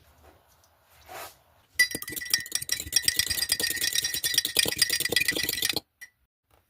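Loud, dense crackling crunch of crunchy toast, starting about two seconds in, running about four seconds and cutting off suddenly.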